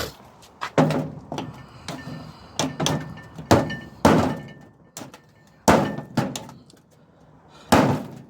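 About eight irregular hammer blows on a small microwave fan motor, knocking it apart to free the copper winding from its steel core; each blow is sharp with a short ringing tail.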